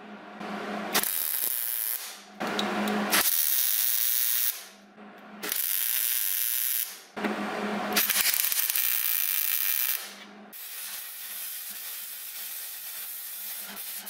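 MIG welder arc welding engine-mount brackets in, as a series of crackling, hissing bursts of one to two seconds each with short pauses between, and a quieter steady hiss near the end.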